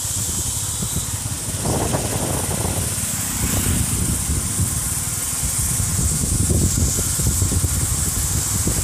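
Wind buffeting the microphone and road noise of a motorcycle moving downhill: a steady rush with an uneven low rumble.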